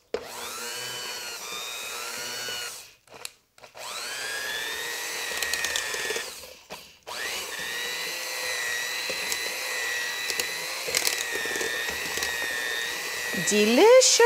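Electric mixer whipping mashed potatoes with butter and half-and-half, its motor whining steadily. It runs three times, rising in pitch at each start, with short stops between runs; the last run is the longest.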